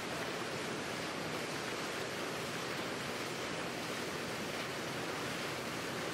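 Steady, even rushing of wind and water heard from aboard a boat moving along a river.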